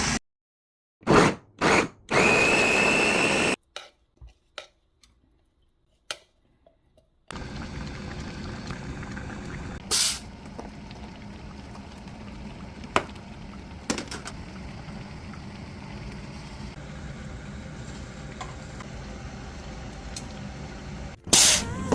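A few loud short mechanical noises, one rising in pitch, and scattered clicks, then a steady whir with occasional knocks that stops just before the end.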